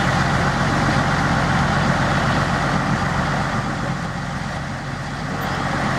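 Military 6x6 cargo truck's engine running at low speed as the truck rolls slowly past, a steady low rumble that eases slightly for a moment just before the end and then picks up again.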